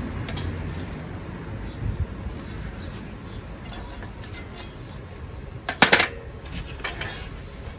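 Steel pieces handled on a workbench: a couple of sharp metal clinks with a brief ring about six seconds in, and a lighter knock soon after, over a steady low rumble.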